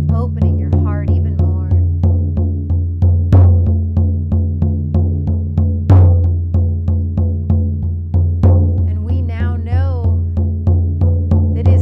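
Hide frame drum struck with a beater in a steady, even beat of about four strokes a second, each stroke leaving a deep booming ring. This is the monotonous drumming rhythm used to carry a shamanic journey.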